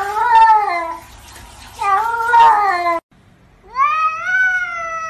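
Cat meowing: two drawn-out meows that rise and fall in pitch, each about a second long. After a cut, a tabby cat gives one long meow that rises and then holds.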